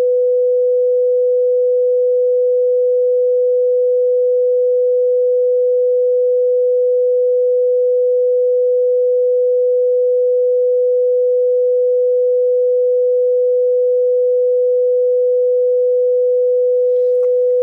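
A single steady pure tone held at one unchanging mid pitch: the sustained background tone under the affirmations.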